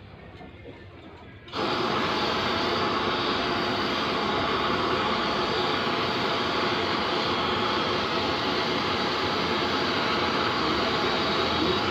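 Gas burner on a cooking-gas cylinder, its flame giving a steady loud rushing hiss that starts suddenly about a second and a half in, while a chicken is singed over it.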